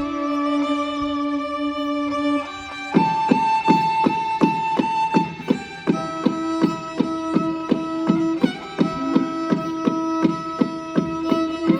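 Traditional Manipuri music: a melody instrument holds long notes that change in steps, and about three seconds in, drums join with steady strokes, roughly three a second.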